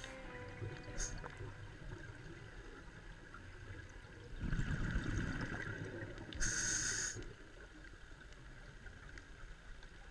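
Underwater sound of a scuba diver's regulator heard through a camera housing: a burst of rumbling exhaled bubbles about four seconds in, then a short hiss of an inhale just after.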